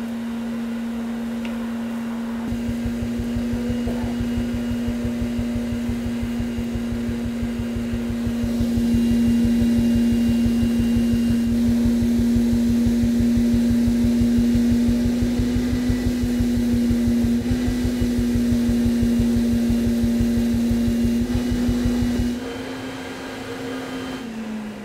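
Force II insulation blowing machine running with only the air on, its blower giving a steady hum over a rapid low pulsing, as the hose is knifed down into the wall cavity. A little before the end the pulsing stops, the sound drops, and the blower's tone begins to fall as it winds down.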